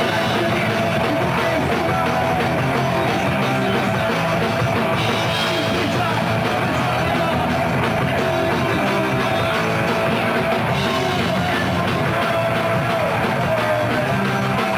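Rock band playing loud and steady: electric guitar and drum kit, with one note held through most of the passage.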